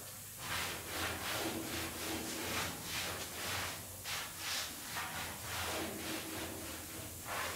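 A thinner-soaked rag scrubbed back and forth over the painted steel roof of a truck cab, a steady rubbing of about two or three strokes a second. The thinner is wiping back the fresh paint to give the cab a distressed, worn finish.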